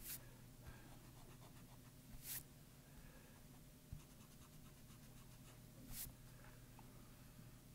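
Faint, brief swishes of a stick eraser rubbing over drawing paper to clear pencil construction lines: three soft strokes a couple of seconds apart, over a low room hum.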